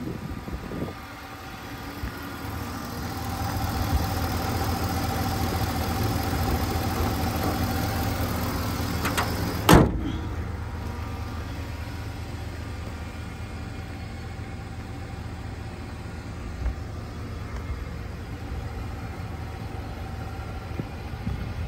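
Ford F-250 Super Duty's 6.2-litre V8 idling steadily with the hood open, growing louder over the first few seconds. About ten seconds in the hood slams shut with one sharp bang, and the idle goes on more muffled after it.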